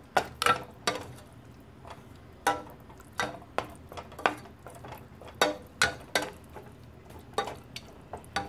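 Wooden spoon knocking and scraping against a stainless steel saucepan while stirring minced chicken, in irregular sharp taps about one or two a second, each with a short metallic ring.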